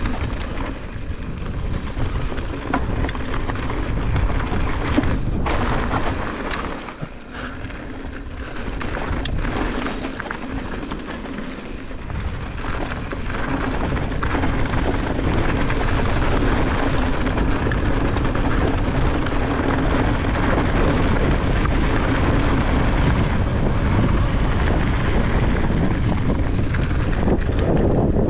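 Mountain bike rolling fast down a rocky gravel trail: tyres crunching and clattering over loose stones, with many small rattles from the bike and heavy wind rumble on the microphone. It quietens for a few seconds early on, then grows louder and steadier through the second half.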